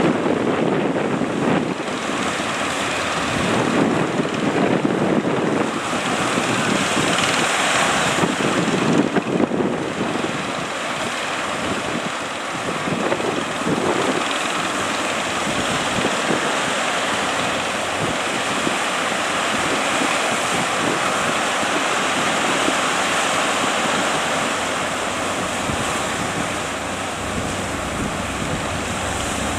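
Surf breaking and washing at a river mouth, surging unevenly at first and then settling into a steady wash, with strong wind buffeting the microphone.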